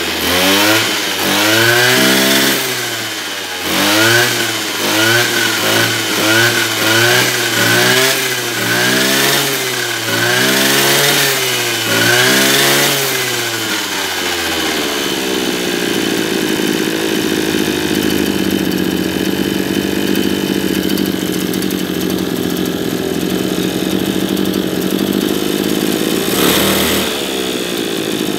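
Maruyama KC26MX brush cutter's 26cc two-stroke engine being revved again and again on the throttle trigger, rising and falling about once a second. About halfway through it settles into a steady idle, with one more brief rev near the end.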